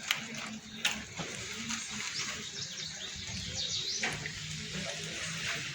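Steady rain falling, with a few sharp ticks of drops near the start and short bird chirps in the middle.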